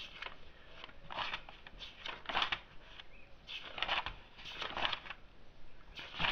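Paper pages of a large paperback book being turned by hand: a series of short rustling swishes, about one a second.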